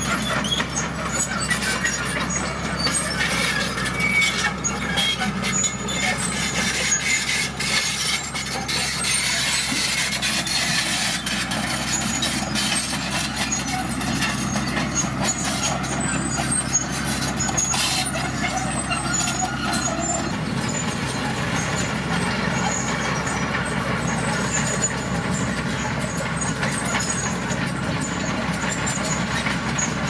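Komatsu D41PX crawler bulldozer's diesel engine running steadily while it pushes and spreads dirt and gravel, with irregular clanks and rattles from the tracks and stones, most frequent in the first half.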